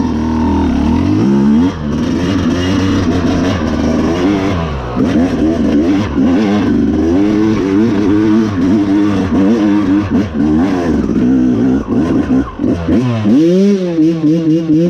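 Yamaha YZ250X's two-stroke single-cylinder engine revving hard under load as the dirt bike climbs a steep dirt hill, its pitch rising and falling over and over with the throttle.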